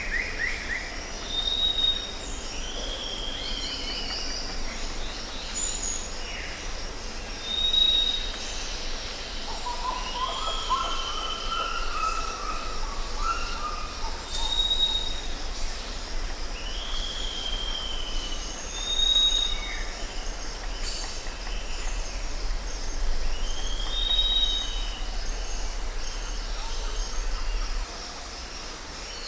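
Jungle ambience: several birds calling, including short high whistles repeated every few seconds and curving downslurred calls, over a steady high insect drone. A low steady rumble runs underneath and drops away near the end.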